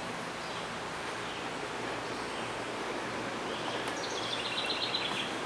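Steady outdoor background noise in woods. Near the end, one songbird phrase: a quick run of high notes stepping down in pitch.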